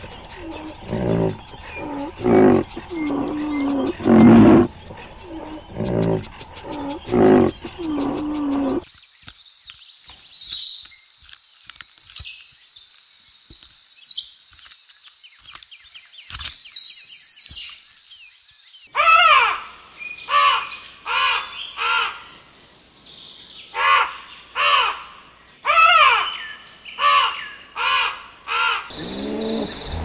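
A series of animal calls. For about nine seconds there are low, pitched calls repeated roughly once a second. These give way to high-pitched chirps and squeaks, then to a run of short calls that rise and fall in pitch, about three every two seconds.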